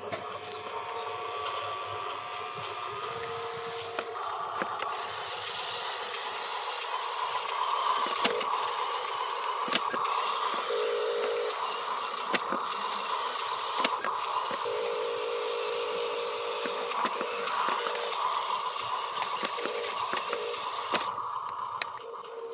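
Small electric motors and gearboxes of radio-controlled construction toys running steadily with a whine: an RC dump truck driving and raising its tipper bed, and an RC tracked loader moving. Scattered sharp clicks and short steady tones come and go over it.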